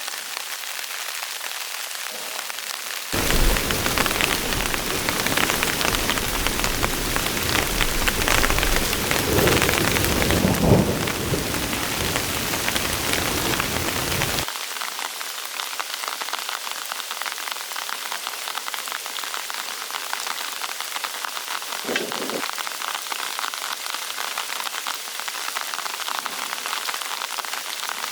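Heavy rain falling in a steady hiss. From about three seconds in, a louder stretch of rain with a deep rumble of thunder that swells in the middle and cuts off abruptly, leaving the rain alone again, with a single brief thump later on.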